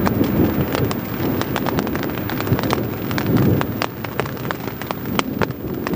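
Rain and falling pine needles hitting a tent, heard from inside as a dense spray of sharp taps on the fabric. Under it a low storm rumble swells near the start and again about halfway through.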